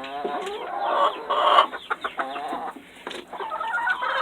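A flock of backyard chickens clucking and squawking, many birds calling over one another.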